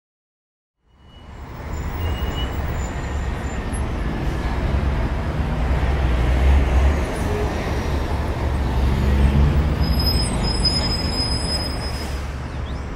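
Steady city street-traffic noise with a deep rumble. It fades in about a second in and swells twice.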